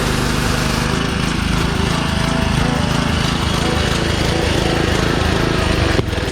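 Karcher K2400HH gas pressure washer running, its small engine driving the freshly rebuilt pump. The sound turns rougher about a second in and cuts off suddenly near the end.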